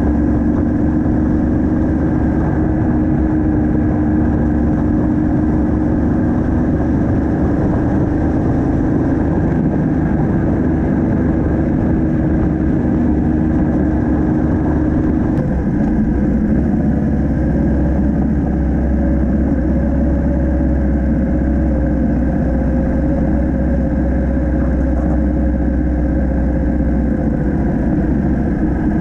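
Yamaha MT-07's 689 cc parallel-twin engine running steadily under way, heard from the bike itself; the engine note changes about halfway through.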